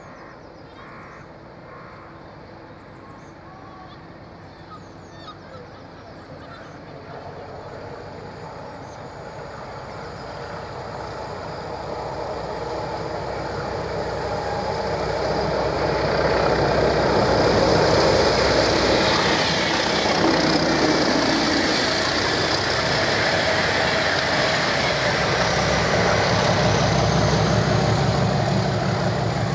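Diesel train approaching from far off and passing close by: its engine and wheels on the rails grow steadily louder over the first half, then hold at a loud level with a heavy engine throb toward the end.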